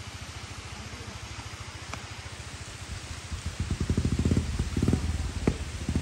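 A vehicle engine running steadily with a fast low pulse, under an even hiss of falling water. About three and a half seconds in, the low rumble gets louder and rougher.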